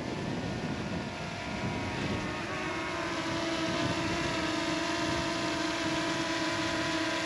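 DJI Mini 2 quadcopter's propellers whining as it flies low over the grass; the steady pitched whine settles in about two and a half seconds in and grows slightly louder.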